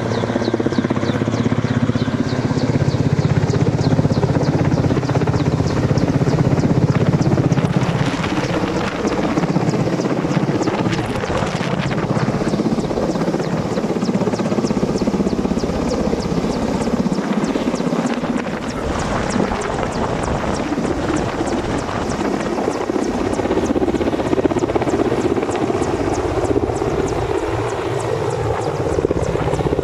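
Mi-8-type twin-turbine helicopter flying low close by, its main rotor chopping and its turbines running steadily.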